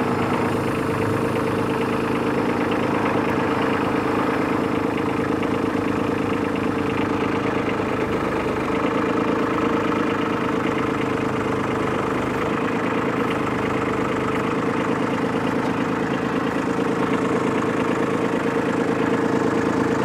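Kubota B2601 compact tractor's three-cylinder diesel engine running steadily while the front loader's grapple picks up a long log.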